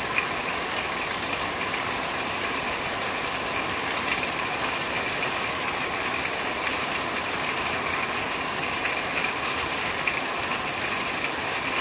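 Rain falling steadily on a corrugated sheet roof: a dense, even patter of countless drop impacts.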